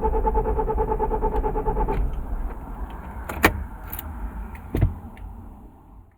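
Car engine being cranked on the starter motor, a fast rhythmic pulsing whine that stops about two seconds in. A sharp click and a thump follow as the rumble dies away.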